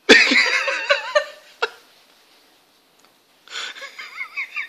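Dog making warbling, whining vocal sounds with a wavering pitch: a loud one of about a second right at the start, then a second, quieter one from about three and a half seconds in.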